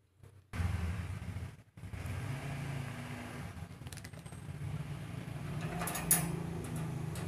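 A domestic cat purring close up, a steady low pulsing rumble that dips briefly once, with a short metallic clink about six seconds in.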